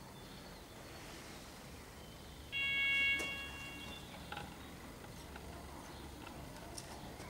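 A single steady ringing signal tone, lasting about a second and then fading, of the kind a dressage judge sounds to tell the rider to begin the test.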